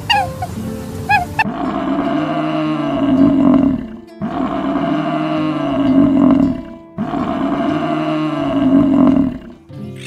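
A big cat roaring: three long roars in a row, each rising and falling in pitch, with short breaks between them.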